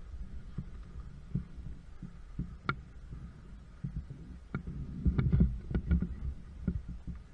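Irregular dull thumps and sharper clicks from a carried camera being handled on a walk, with the knocks coming thicker and louder about five to six seconds in, over a low steady rumble.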